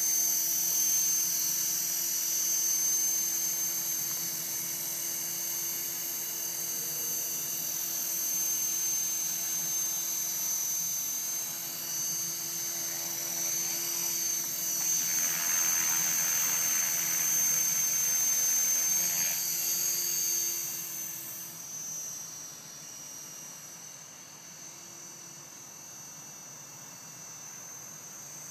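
Align T-Rex 450 Pro electric RC helicopter hovering low, its motor, gears and rotor giving a steady high-pitched whine that wavers in pitch midway. About three quarters of the way in the whine drops away, leaving a much quieter background.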